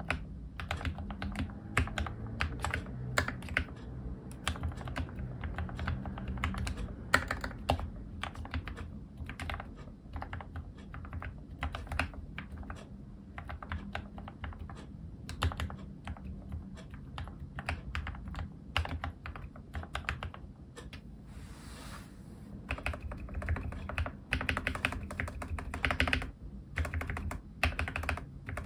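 Continuous typing on an ObinsLab Anne Pro 2 60% mechanical keyboard fitted with lubed Gateron Red linear switches, Cherry-profile keycaps, and added bottom and switch-plate foam: a fast, irregular run of keystrokes with most of their sound low in pitch.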